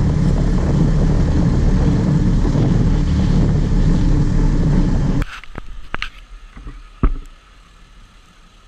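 Fishing boat's engine running steadily, which cuts off suddenly about five seconds in. It is followed by a few sharp knocks, the loudest about seven seconds in.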